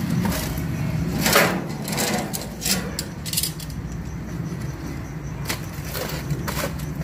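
Aluminium foil crinkling and rustling in irregular crackles as a foil wrap is pulled open, with the clicks of metal tongs handling the food inside, over a steady low hum.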